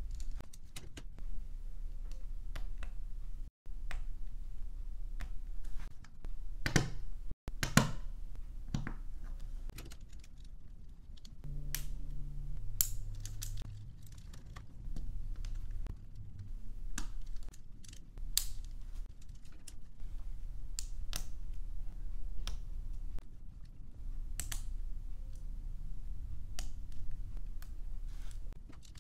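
LEGO Technic plastic pieces being handled and snapped together: irregular sharp clicks and small rattles as pins and beams are pushed into place, with a few louder clicks near the middle.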